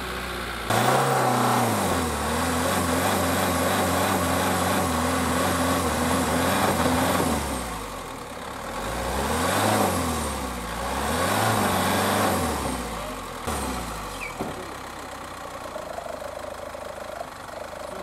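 GAZ Sobol 4x4 van's engine revving under load as the stuck van tries to drive out. It starts about a second in and surges up and down, with two distinct rev swells in the second half, then drops back to a steady idle near the end.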